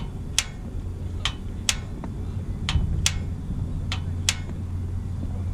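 A portable gas camp stove's piezo igniter clicking over and over as the burner is being lit: about eight sharp clicks in pairs, roughly one pair a second, over a steady low hum.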